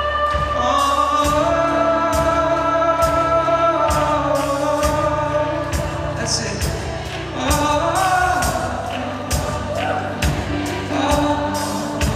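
Live worship music: voices singing long held notes over a band, with drum hits keeping a steady beat.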